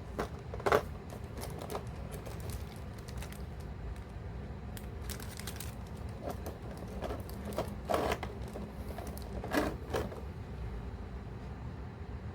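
Scattered small clicks and taps of plastic being handled, likely the figma action figure and its packaging, with a louder knock near the start and two more in the last third, over a steady low hum.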